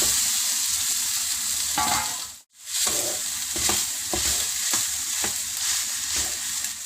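Cooked rice being stirred into grated raw mango and tempering frying in sesame oil in a kadai: a steady sizzle with repeated scraping stirring strokes. The sound drops out briefly about two and a half seconds in.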